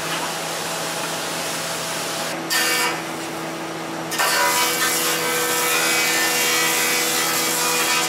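Planing machine running with a steady motor hum, and a board being fed through the cutterhead: a short loud cut about two and a half seconds in, then a longer one from about four seconds in.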